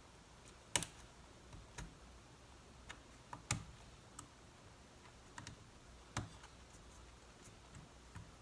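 Scattered sharp clicks and taps from small laptop parts and tools being handled during a repair. There are three louder knocks, a little under three seconds apart, with fainter ticks between them.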